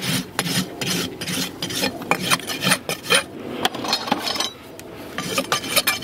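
Farrier's steel hoof rasp filing the outer wall of a shod horse's hoof in quick back-and-forth strokes, with a short pause about four seconds in before the rasping resumes.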